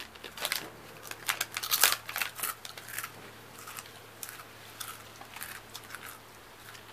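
Crunching and chewing of a crisp soy chip: a run of sharp crunches, loudest about two seconds in, thinning out after about three seconds.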